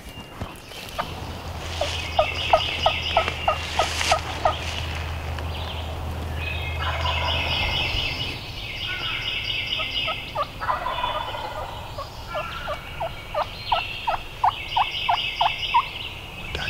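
Wild turkey gobbler gobbling again and again, with two runs of short, evenly spaced yelps, about six a second, mixed in.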